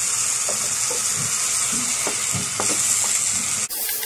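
Cream and mixed vegetables sizzling in a frying pan over a low flame, with a wooden spatula stirring and scraping the pan now and then. The sizzle cuts off suddenly near the end.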